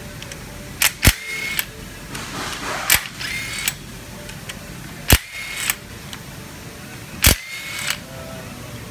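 Cordless drill run in four short bursts about two seconds apart, each a sharp click followed by a brief whir, as it spins out the bolts holding the cylinder head down.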